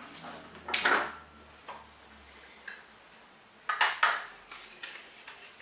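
Hands rummaging through the lots in a glass bowl, with the slips and capsules clinking and rattling against the glass in two short bursts, about a second in and again about four seconds in.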